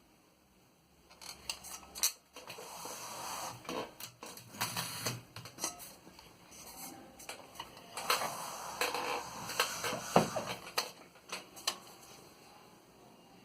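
1908 Remington Standard No. 10 typewriter being worked: irregular sharp clacks and rattling of its mechanism, in two busy spells with quieter gaps between.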